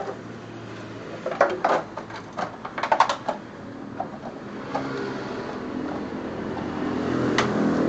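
A dog chewing an empty plastic water bottle: a quick flurry of sharp plastic crackles and clicks from about one to three and a half seconds in, then a few single clicks. A low hum builds in the background near the end.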